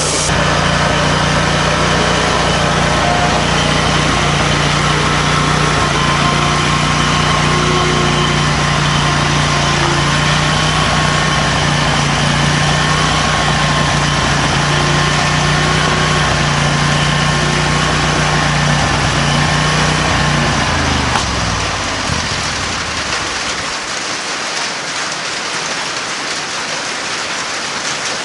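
Predator 670 V-twin engine on an Exmark zero-turn mower running steadily. About twenty seconds in it winds down and stops, leaving the steady hiss of rain.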